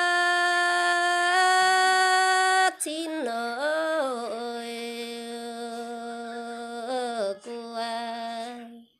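A solo voice singing a Red Dao folk song unaccompanied in long held notes. A high note steps up slightly and breaks off after a few seconds; then the voice glides down to a lower note, holds it for several seconds with brief dips, and stops just before the end.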